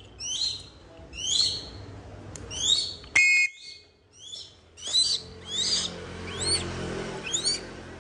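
Hawk calling over and over, a short high squeal falling in pitch about once a second. A short metallic clink about three seconds in, and a rustle of flapping wings in the second half as the hawk flies up to the glove.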